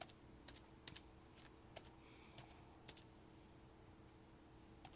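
Soft, irregular clicks and taps, roughly one every half second to second, as a foam sponge dauber is pounced onto a wet paper towel and dipped into a plastic paint palette. A faint steady hum sits underneath.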